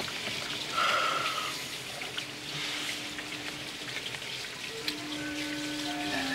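Steady hiss of rain, with soft music of long held notes fading in over it, one note after another, during the second half.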